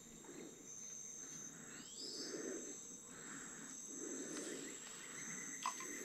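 Insects trilling in the forest: a steady high-pitched whine that stops and starts over a second, continuous one, with a short rising whistle about two seconds in.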